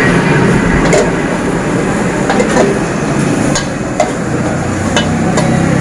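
Steel ladle clanking against a wok as fried rice is stirred and tossed, a series of irregular metal strikes over the steady rush of a high gas burner.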